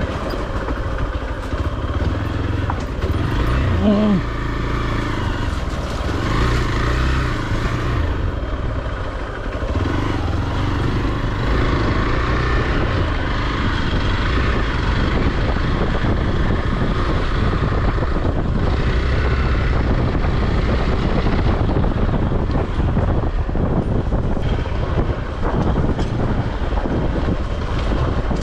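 A Hero XPulse 200's single-cylinder engine running under load as the motorcycle is ridden over a rough off-road trail. A steady rushing noise sits over the engine.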